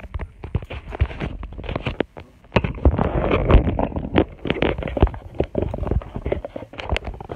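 Handling noise from a phone held close to its microphone while it is turned and repositioned: a run of irregular clicks, knocks and finger rubbing, with a louder stretch of rustling a few seconds in.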